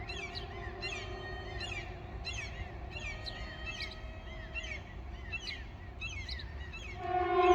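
Small bird chirping over and over, about two short chirps a second, while a civil defence siren's tone hangs faint in the background. Near the end the siren sounds again, loud and steady.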